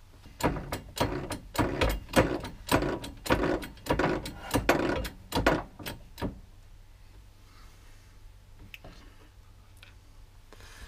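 Hand-pumped Clarke hydraulic shop press being worked to bring its ram down onto a bearing: a fast run of sharp metallic clacks, about five a second, lasting some six seconds. Then only faint handling sounds as a press block is set on the bearing.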